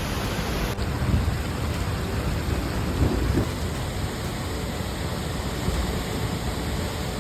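Steady rain noise with low rumbling, as in a thunderstorm, swelling briefly about one and three seconds in.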